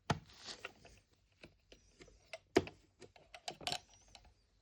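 Small plastic toy groceries and a toy fridge being handled: a scatter of light clicks and taps, with two sharper knocks, one at the very start and one about two and a half seconds in.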